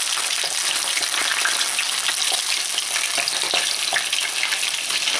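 Hot oil sizzling steadily around a whole burbot frying in a pan, with a constant scatter of small crackles and pops.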